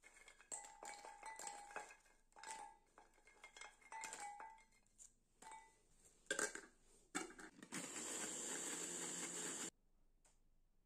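Oreo cookies dropping into a glass food-processor bowl, each landing with a clink and a short glassy ring, followed by a couple of louder knocks. Then the food processor runs for about two seconds, grinding the cookies to crumbs, and cuts off suddenly.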